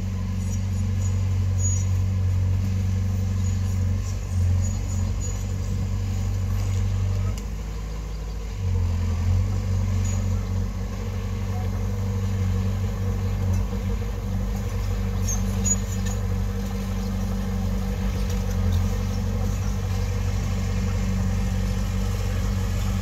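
Diesel engine of heavy earthmoving machinery running steadily with a low hum, easing off for about a second partway through and then picking back up.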